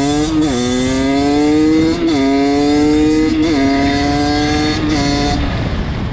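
Rieju MRT two-stroke dirt bike engine under full throttle, its note climbing in each gear and dropping sharply at four upshifts, pulling hard. Near the end the throttle is closed and the engine note falls away.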